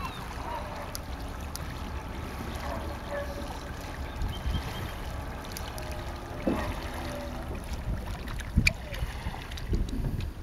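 Wind rumbling on the microphone at the waterside, with a few faint bird calls in the first seconds and a sharp knock about three-quarters of the way through.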